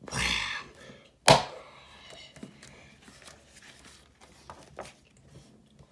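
Pages of a hardcover book being handled and turned. A short papery rustle comes at the start, then a sharp tap about a second in, then faint rustling and small clicks of paper.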